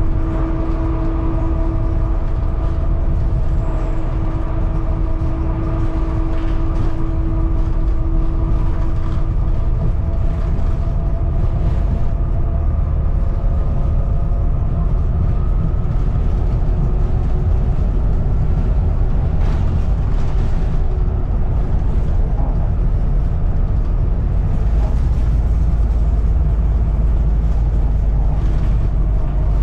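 Volvo B7TL double-decker bus on the move, heard from on board: a deep, steady diesel rumble with whistling tones from the turbo above it, and the occasional rattle of the bodywork.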